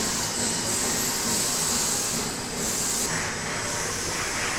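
UV gel printer running: a steady rushing hiss of machine noise, with a higher hiss that swells and fades several times.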